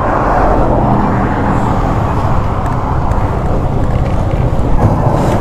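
Steady noise of passing road traffic, loudest in the first couple of seconds.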